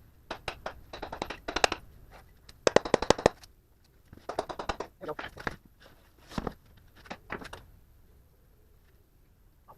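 Socket ratchet wrench clicking in about seven short bursts of rapid metallic clicks, working nuts loose on a truck's front axle, then falling quiet about two-thirds of the way through.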